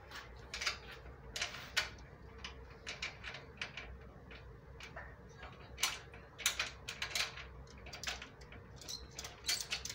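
Irregular sharp clicks and light metallic knocks, one to three a second and busiest about six seconds in, from wrenches, bolts and nuts being handled while a bench vise is bolted down. A faint steady hum runs underneath.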